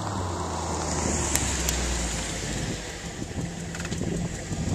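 2000 Lincoln LS 3.9L V8 running through Flowmaster 40-series mufflers with the resonators replaced by straight pipe, a low steady exhaust drone at low revs. A rushing noise lies over it throughout.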